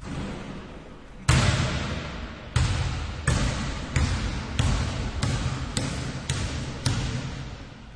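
Basketball dribbled by one person. One bounce comes about a second in, then a steady run of bounces about every half-second to second, each ringing on in an echo.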